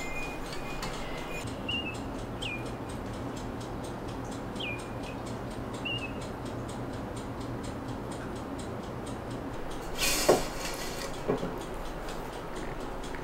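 Kitchenware clatter from a metal sieve, steel pot and ceramic jug being handled: a loud clatter with a sharp clank about ten seconds in and a smaller clink a second later. A few short bird chirps sound in the first six seconds over a steady low hum.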